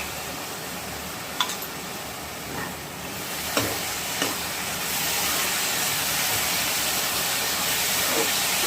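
Ghee sizzling in a hot kadai of carrot halwa while a spatula stirs and scrapes the pan with a few clicks. The sizzle grows louder about three seconds in and then holds steady.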